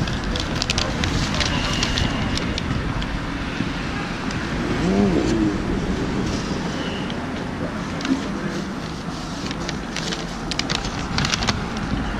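City street ambience: road traffic running by steadily, with scattered clicks and a brief wavering voice-like sound about five seconds in.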